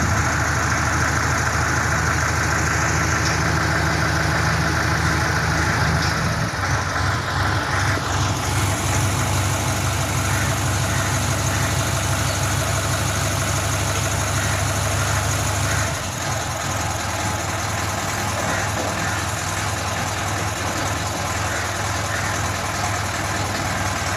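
Super Marshal silent diesel generator running steadily, a continuous low engine drone. Its low hum weakens about 16 seconds in.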